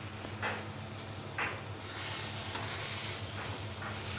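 Semolina and freshly added hot water sizzling in a hot kadhai, a steady hiss that grows stronger about two seconds in, with two faint taps before it.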